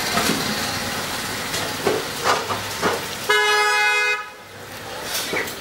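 Street background noise with a single steady vehicle horn honk lasting under a second, a little after three seconds in.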